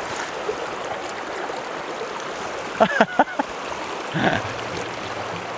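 Mountain stream water running steadily, with a few short sharp sounds about three seconds in.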